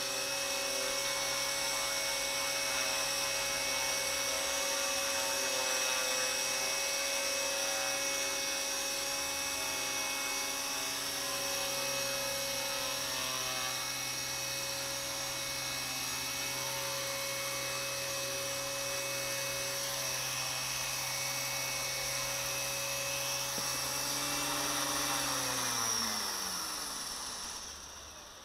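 Align T-Rex 250 electric RC helicopter hovering: a steady high whine from its brushless motor and drivetrain, with the rotor's buzz. In the last few seconds the whole sound winds down in pitch and fades as the helicopter sits on its landing pad and the rotor spools down.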